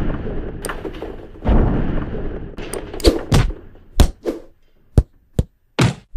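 Cartoon fight sound effects for an animated stick figure: two long rushing crashes, then a quick run of about eight sharp whooshes and hits.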